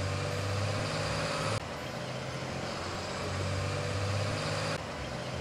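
Ford flatbed tow truck's engine running at low speed, a steady low hum, carrying an SUV on its bed. The sound changes abruptly twice, as at splices between clips.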